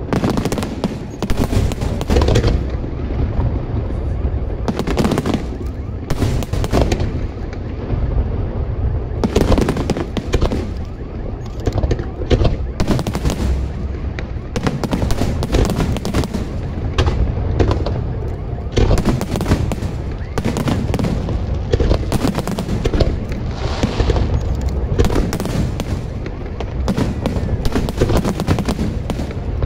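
A fireworks display at full barrage: aerial shells bursting in rapid succession, a dense, unbroken run of booms and crackles.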